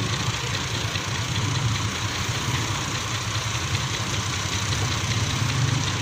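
Diesel engine of a brick-hauling tractor trolley idling steadily with a low throb.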